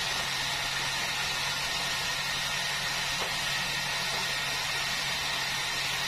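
Large band sawmill running steadily: a constant motor hum under a steady high hiss from the blade.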